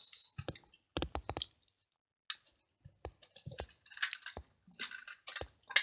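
Snail adhesive tape runner being dabbed and rolled onto small cardstock pieces: a run of sharp clicks, several close together about a second in, with short rasping strokes between them.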